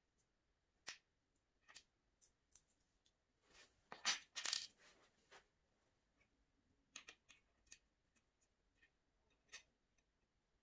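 Small metal furniture fittings (brackets, screws and washers) clinking as they are handled and set down on a particleboard panel: scattered light clicks, with a louder clatter about four seconds in.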